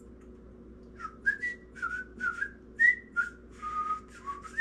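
A person whistling a tune: a run of about ten breathy notes, some sliding up or down in pitch, starting about a second in.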